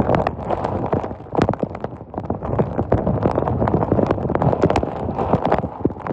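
Thunderstorm rain and wind, a steady rushing rumble with many irregular sharp taps close to the microphone.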